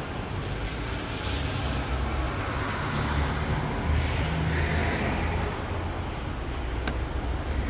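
Aerosol cleaner hissing in short sprays into a car's opened air intake, over a steady low rumble, with one sharp click near the end.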